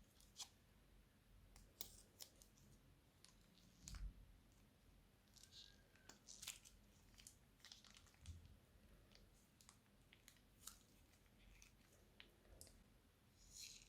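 Faint, scattered crackles and clicks from crunchy slime and plastic piping bags being handled, with a short cluster of crackles near the end.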